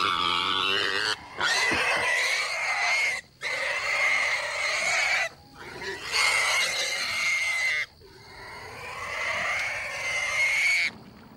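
A domestic pig squealing as it is held down on a table for slaughter: a string of about five long, high-pitched screams, each one to three seconds, broken by short gaps for breath. These are the distress squeals of a restrained pig.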